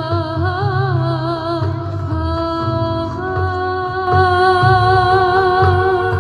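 Live music: a singer holds long notes, wavering at first and then steady, over a low pulsing accompaniment, growing louder about four seconds in.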